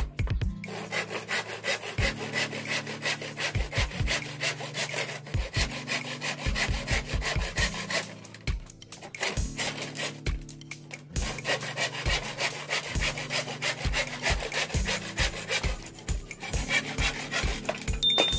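Hand saw cutting through a bundle of thin split-bamboo strips in rapid back-and-forth strokes, stopping twice briefly a little after halfway through.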